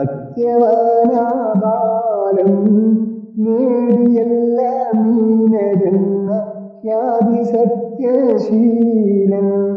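A slow, melodic song: one voice singing long, sliding phrases, with short breaks between them.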